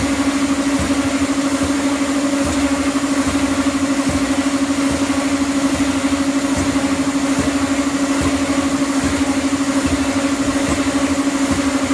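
Escalator running: a loud, steady mechanical hum with a fast, even pulsing.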